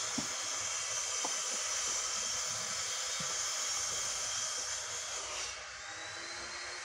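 A steady rushing hiss that eases off about five and a half seconds in, with a few faint knocks of concrete pavers being handled and stacked.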